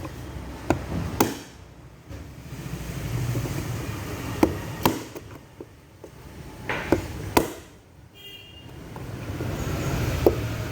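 Hammer driving a chisel into a washing machine's stainless steel drum: sharp metallic strikes, mostly in pairs about half a second apart, seven in all. Road traffic rumbles behind, swelling twice.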